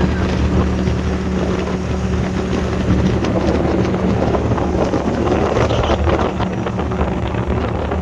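A boat motor running steadily, with wind buffeting the microphone.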